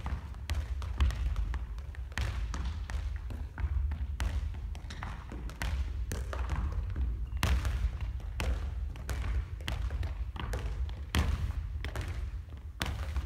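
A small football bounces on a hardwood gym floor and is kicked back up again and again in bounce juggling. The thuds come in an uneven run of about two a second, ringing in a large hall, over a steady low rumble.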